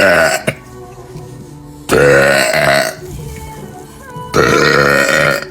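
A girl's loud burps: one ends just after the start, then two more follow, each about a second long, about two seconds in and near the end.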